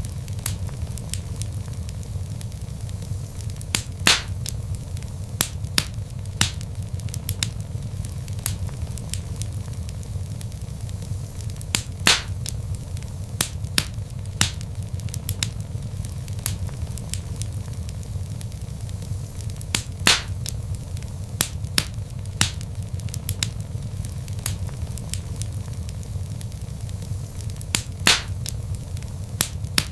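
Log fire burning in a fireplace: a steady low rumble with frequent sharp crackles and snaps, and a louder pop about every eight seconds.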